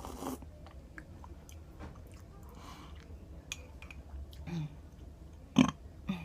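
Close-up chewing and mouth sounds of someone eating, with small wet clicks throughout and one loud, sharp mouth sound a little before the end.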